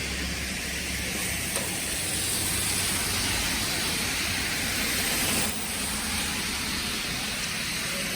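Steady hiss of a wet, snowy street in falling snow, with a small dip in level about five and a half seconds in.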